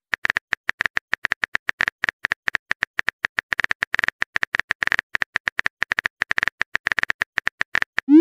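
Smartphone keyboard tap clicks as a text message is typed out: a fast, slightly irregular run of short, crisp ticks at about ten a second that stops near the end. It is followed by a short rising swoosh as the message is sent.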